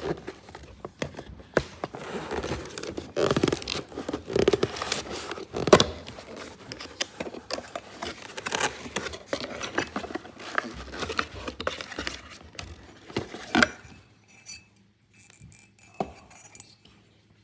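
Irregular scraping, tapping and clicking of small objects being moved about, with one sharper knock about six seconds in. It dies down to a few faint clicks for the last few seconds.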